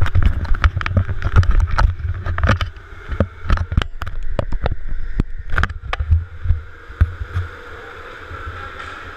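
Handling noise from a fisheye action camera gripped and moved in the hand: irregular knocks and rubs on the housing over a muffled low rumble. The knocks are thickest in the first few seconds and die down near the end.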